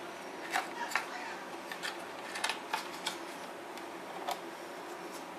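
Handling noise as a glass-fibre RC helicopter fuselage and its clear plastic packing wrap are moved about: irregular sharp clicks and crinkles over a steady low hiss.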